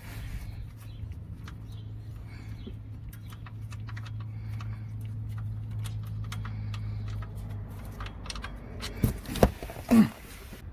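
Oil drain plug being unscrewed by hand and handled, with small scattered clicks and a few loud knocks about nine to ten seconds in, over a steady low hum that fades out near the end.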